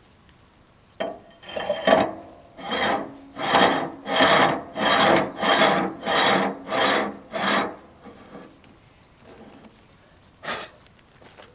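A hand tool scraping with about ten rhythmic strokes, roughly one and a half a second, each swelling and fading, then stopping. A single sharp knock follows near the end.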